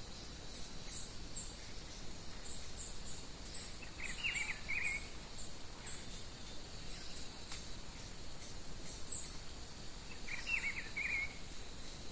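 Birdsong with insects: a bird sings a short phrase of quick notes twice, about six seconds apart, over a faint steady insect hum and scattered short high chirps.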